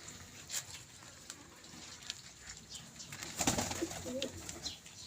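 Domestic pigeons cooing among short flutters of wing flaps, with a louder burst of flapping and scuffling about three and a half seconds in.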